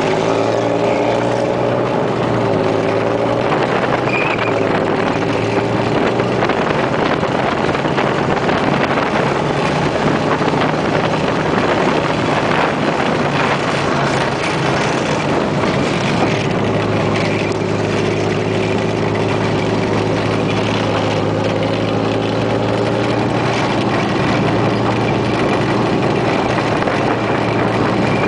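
The FAMOS ten-cylinder diesel engine of a BVP M80A tracked infantry fighting vehicle running under way, heard up close from on top of the vehicle. Its pitch drops near the start and rises and falls again in the second half as the vehicle changes speed.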